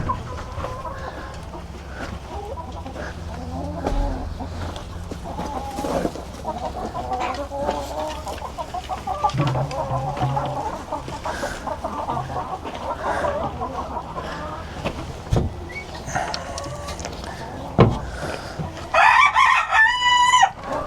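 Chickens clucking and murmuring throughout, with a few sharp knocks. Near the end a rooster crows loudly in stepped notes.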